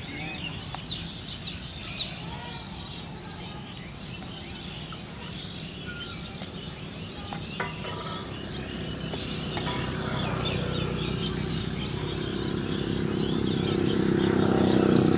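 Birds chirping over steady outdoor background noise, with a few sharp clicks in the first couple of seconds. A low rumble grows louder over the last few seconds.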